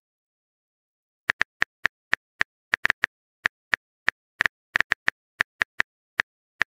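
Phone on-screen keyboard key-click sounds: a quick, irregular run of short taps starting a little over a second in.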